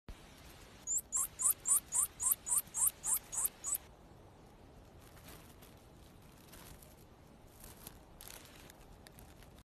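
A small furry mammal giving a quick series of about a dozen short, high squeaks, about four a second, starting a second in and lasting about three seconds.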